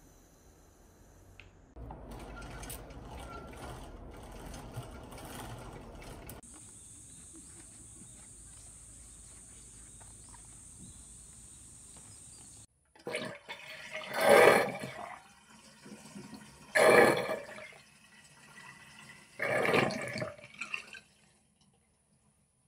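Quiet rushing and a thin steady hiss, then three loud surges of splashing water, each about a second long and a couple of seconds apart.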